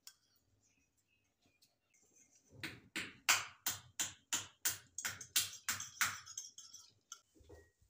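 Fork beating eggs in a ceramic bowl: a run of sharp, even clinks, about three a second, that stops about six seconds in. A dull thump follows near the end.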